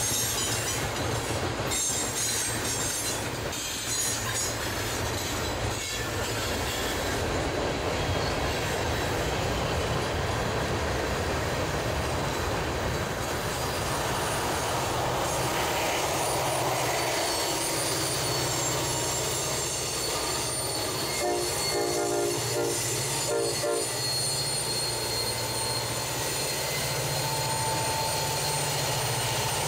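Freight train passing close by: tank cars and gondolas roll past with wheel clatter and high wheel squeal. From about halfway, a low drone builds as mid-train diesel locomotives come by. A brief pulsing tone sounds about three-quarters of the way through.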